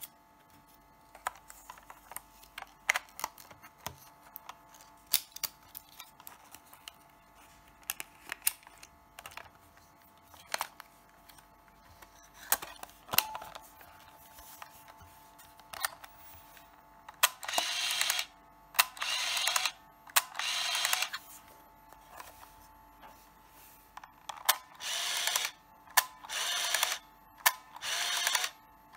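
Minolta F10BF 35mm compact camera being handled: small clicks and snaps of its plastic body, film door and buttons. Just past the middle come three short whirring bursts of the built-in film-transport motor, and several more near the end as the shutter button is pressed.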